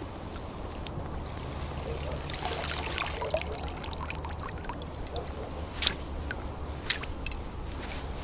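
Water pouring and dripping off a mesh fish keepnet as it is handled at the side of the boat, followed by a few sharp knocks and clicks.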